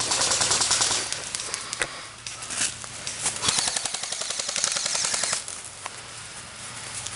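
Airsoft rifles firing on full auto: a rapid burst of about a second at the start, then a longer burst of about three seconds, with a few single shots between.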